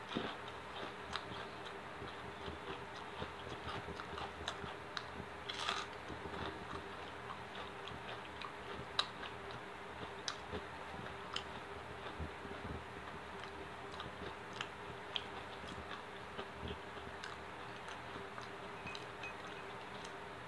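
Close-up eating sounds: a person chewing and biting food, with many small wet mouth clicks scattered irregularly and a slightly louder one about six seconds in.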